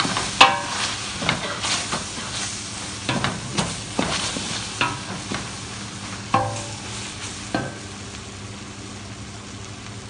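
A wooden spoon stirs and scrapes sliced onions in a large stainless steel pot, knocking against the metal so the pot rings briefly now and then. The onions sizzle softly as they caramelize without oil. The stirring eases off about eight seconds in.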